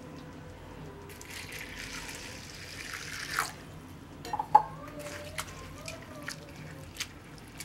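Water poured into a bowl of beaten rice (poha) for about two seconds, then hands swishing and rubbing the wet flakes, with a few small splashes and clicks, the sharpest about four and a half seconds in: the poha being rinsed before it is soaked.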